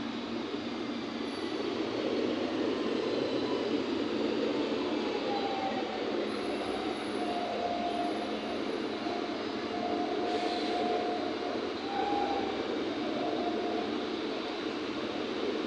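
Dubai Metro train running past, a steady rush of rail noise, with a thin wheel squeal for several seconds in the middle.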